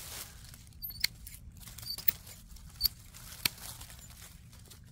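Hand pruners snipping small branches off a trimmed tree limb: several sharp snips about a second apart, with dry leaves rustling between them.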